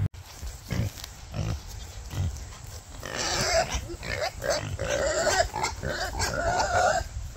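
Pigs grunting, then a run of short pitched squealing calls from about three seconds in.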